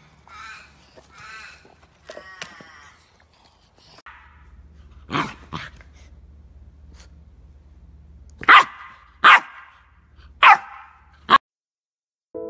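Labrador puppy barking: about six short, sharp barks, two close together and then four spaced roughly a second apart. Before them come a few soft, high whines; the barking stops abruptly and soft piano music starts just before the end.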